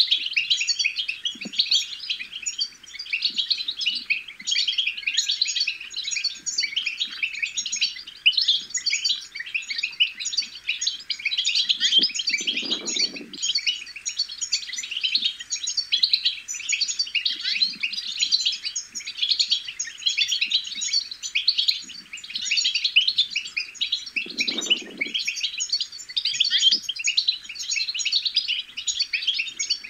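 European goldfinch chatter: a dense, fast, unbroken twittering of quick chirps and trills. Twice, about 12 and 24 seconds in, a brief low muffled sound runs under it.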